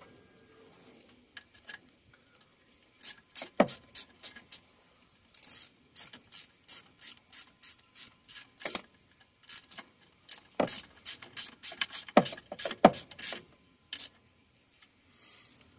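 Hand ratchet wrench clicking in three short runs of rapid strokes, with a few louder knocks among them, as the alternator mounting bolts are run in to just past hand tight.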